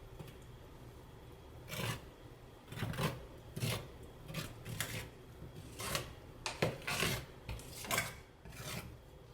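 Tile adhesive being spread and scraped onto a wall with a hand spreading tool: a series of about a dozen short scraping strokes, starting about two seconds in.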